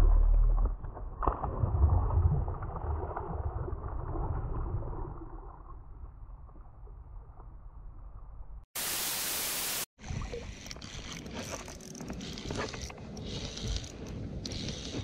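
Water lapping and sloshing around a float tube, with wind rumbling on the camera's microphone and small knocks, fading over the first several seconds. About nine seconds in comes a burst of even hiss lasting about a second, then a brighter rush of wind and water with light clicks.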